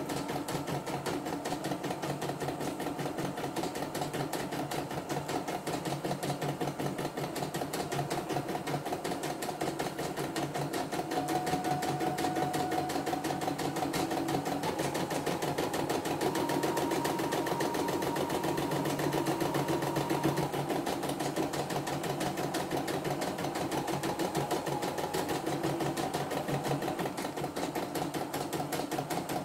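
CNY E960 computerized embroidery machine stitching a design in its hoop: a fast, even needle rhythm at a steady speed.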